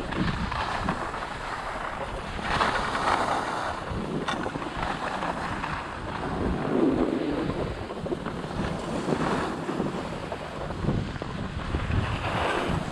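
Skis sliding and scraping over groomed snow, the hiss swelling a few times as the edges bite in turns, with wind rumbling on the microphone.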